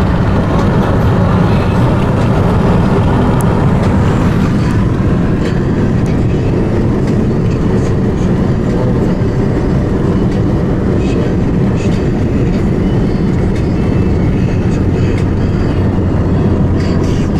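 Steady travel noise heard from inside a moving vehicle: a continuous loud rumble.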